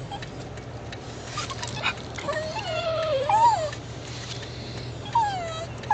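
Small dogs whining in high, wavering pitches: several whines, the longest rising and falling about three seconds in and another falling one near the end, over the steady low drone of the car.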